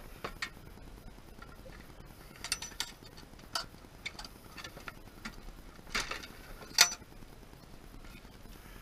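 Irregular clicks and knocks of a battery and its connector being handled and forced into an RC car's battery compartment, with the sharpest click around seven seconds in.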